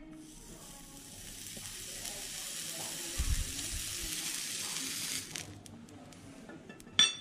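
Hot steel horseshoe pressed against a horse's hoof, the horn sizzling as it burns to seat the shoe (hot shoeing). The sizzle stops about five seconds in. A low thump comes about three seconds in, and a short sharp knock near the end.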